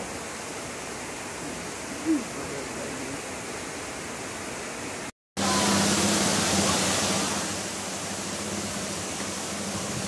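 Rushing river water running over rocks, a steady noise. It cuts out briefly about five seconds in, then returns louder where the river pours over a low weir.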